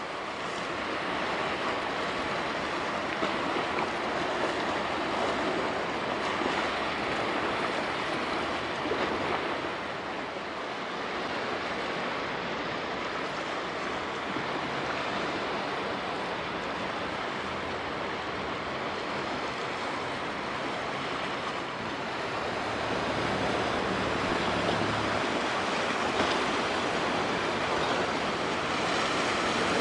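Steady wash of sea water against the shore mixed with wind noise, with a low rumble coming in during the second half.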